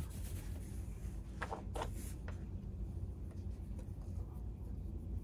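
Light handling noises of plastic chainsaw starter parts on a workbench: a few soft rustles and small clicks about one and a half to two seconds in, over a low steady hum.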